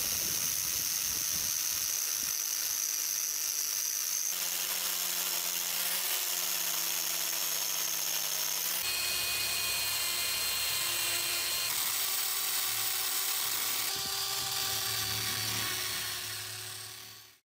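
Power-tool wire wheel spinning against the steel head of a rusty claw hammer, brushing off rust with a steady whine and hiss. The pitch shifts abruptly a few times, and the sound fades out near the end.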